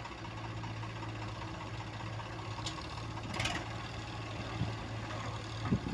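Heavy diesel engine running steadily at low revs, with a short rattle about halfway through and a louder knock near the end.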